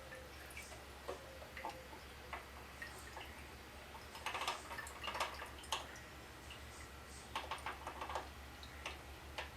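Light clicks and taps of small carburetor parts and hand tools being handled on a bench, in clusters partway through and again later, over a faint low steady hum.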